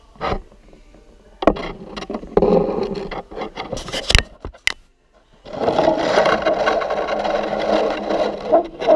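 A Siamese cat nuzzling and rubbing against a camera set on the floor: fur brushing right over the microphone, with scrapes and knocks of the camera on the tile. There are irregular scrapes and knocks at first, then a dense, steady rubbing for the last few seconds.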